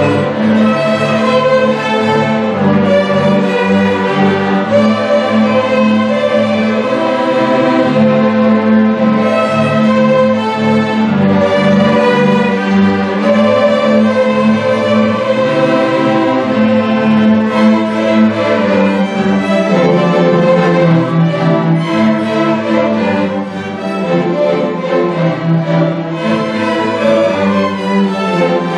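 Youth string orchestra of violins, cellos and double bass playing a piece together in sustained bowed notes, briefly softer about three-quarters of the way through.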